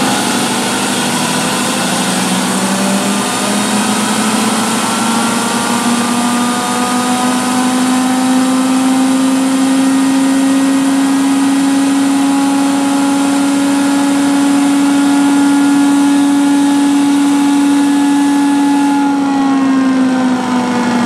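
A 3D-printed Tesla turbine with a CD-disc rotor runs on compressed air at about 100 PSI: a loud rush of air with a humming whine. The whine rises in pitch over the first several seconds as the rotor spins up from about 8,000 to about 17,000 RPM, then holds steady. Near the end the rush thins and the whine drops slightly.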